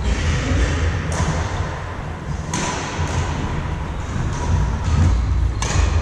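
Badminton play in a large indoor sports hall: sharp racket-on-shuttlecock hits and thuds of shoes on the wooden court, each echoing in the hall, about four times, over a steady low rumble.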